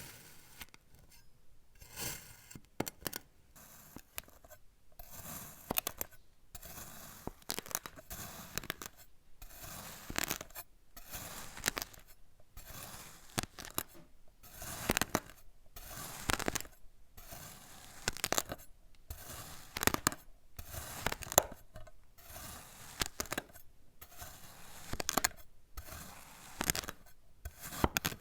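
Blade slicing through packed kinetic sand, a crisp crunching crackle with each cut, repeating about once a second with short pauses between.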